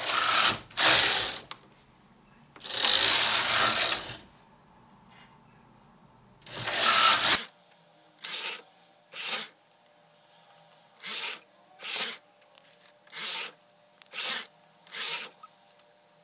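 Carriage of a Brother KH260 bulky knitting machine pushed back and forth across the needle bed during short-row knitting, each pass a rasping rattle of the carriage over the needles. The first four passes are longer; the next seven are short and come roughly a second apart.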